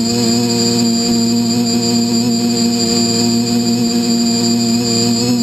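Background music of steady, sustained held tones.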